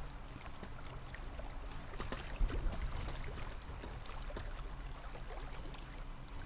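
Small waves lapping and splashing, with many light irregular splashes over a steady low hum.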